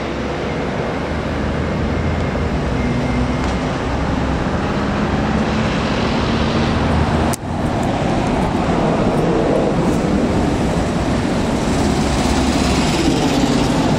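Road traffic noise: a steady low vehicle hum in a covered vehicle bay, then, after an abrupt cut about seven seconds in, cars and vans passing on a busy street.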